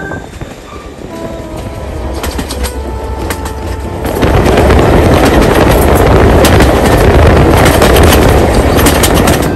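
Jacobite steam train running, heard from inside a carriage: a steady rumble of the carriages on the rails with frequent sharp clicks, getting much louder about four seconds in.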